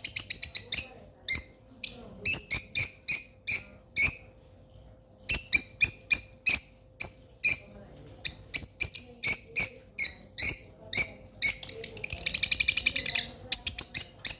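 Pet lovebirds calling: a run of sharp, high-pitched chirps, several a second, with fast rattling chatter at the start and again about twelve seconds in, and a short pause around four to five seconds in.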